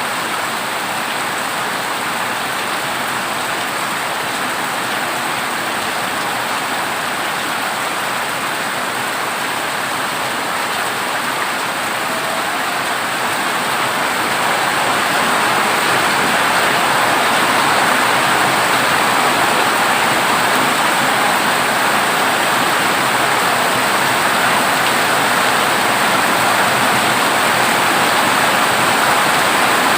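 Heavy rain drumming steadily on a corrugated zinc (tin) roof, growing heavier about halfway through.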